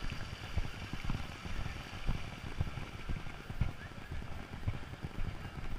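Walking footsteps heard as low, irregular thuds about twice a second through a chest-worn GoPro, with a steady rustling haze of movement and outdoor air behind them.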